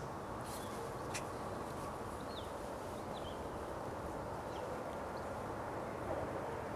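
Steady outdoor background noise with a few faint, short, high bird chirps about two to three seconds in, and a couple of faint clicks near the start.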